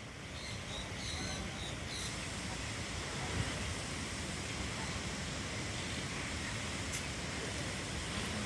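Steady rushing background noise, with a few short high-pitched chirps in the first two seconds.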